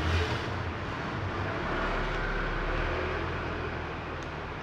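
Low background rumble of traffic, swelling about two seconds in as a vehicle passes.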